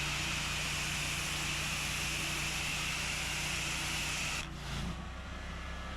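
Pressure-washing spray gun with its trigger held: pressurised water hissing out steadily over a low pump hum, then cutting off about four and a half seconds in when the trigger is released.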